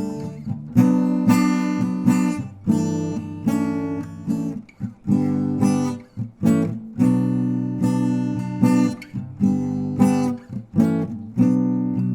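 Acoustic guitar strumming chords in a steady rhythm, each stroke ringing on until the next.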